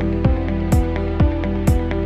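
Background electronic music with a steady beat of about two hits a second under sustained synth notes.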